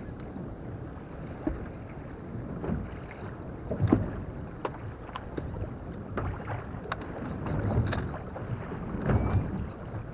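Water lapping against a small boat's hull with wind buffeting the microphone, over scattered light clicks and knocks as fishing tackle is handled. The loudest knock comes about four seconds in.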